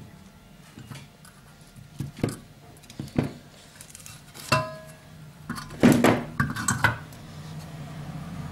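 Metal parts of an electric dry iron knocking and clinking together as it is reassembled: a few sharp knocks, one ringing briefly, then a louder clatter of metal on metal.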